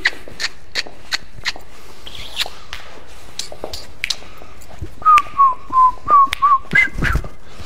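A person whistling a short run of six or seven quick notes about two-thirds of the way in. Earlier there is a series of sharp taps, about three a second.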